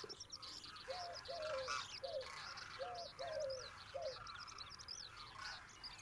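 Birds calling: a low cooing in a three-note phrase, heard twice, over fainter high chirping of small birds.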